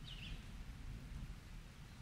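Faint summer-rain ambience: an even hiss over a low rumble, with one quick bird chirp that dips and rises right at the start.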